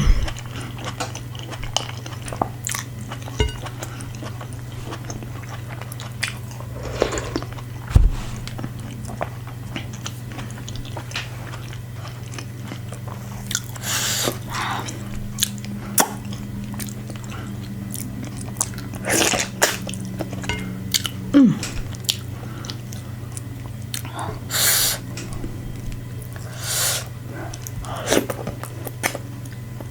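Close-miked chewing and biting of fufu and meat, with wet mouth clicks and a few louder, longer mouth noises, over a steady low hum.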